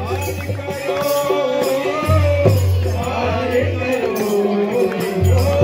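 Live devotional folk music: singing into a microphone over a harmonium, with percussion keeping a steady beat.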